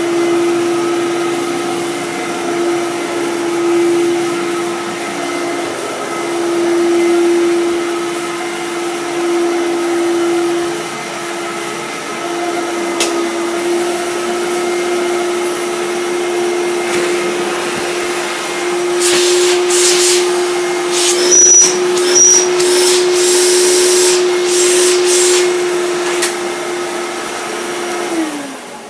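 Fantom Domestic upright vacuum cleaner running with a steady motor whine; for several seconds near the end it gets louder and rougher with hissing and rattling, with a brief high squeak that the owner calls just a touch of belt noise. It is switched off near the end, the whine falling in pitch as the motor winds down.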